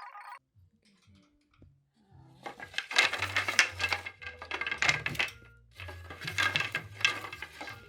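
Small metal hardware (bolts and fittings) clinking and rattling as it is handled, in two stretches of rapid clatter starting about two and a half seconds in.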